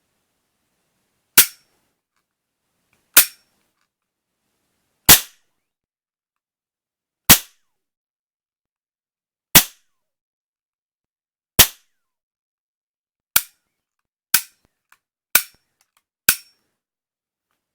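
Toy cap-gun revolver firing ten sharp cap shots: six about two seconds apart, then four quicker ones about a second apart, those last four a little quieter.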